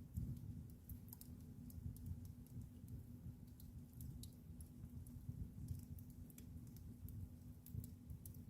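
Wood fire burning in a fireplace, crackling: irregular sharp pops and snaps over a low, steady rumble of the flames.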